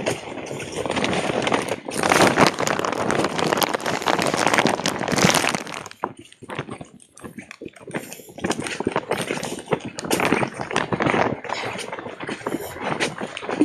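Footsteps and rustling of dry grass as someone walks along a concrete ditch bank, a dense crackle over the first half, then sparser, irregular steps and clicks after about six seconds.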